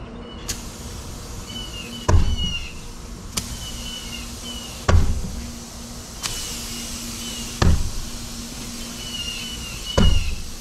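Cold Steel Chaos Bowie, a heavy bowie knife, stabbed hard into an old steel-belted tire: four dull thuds, one every two and a half to three seconds.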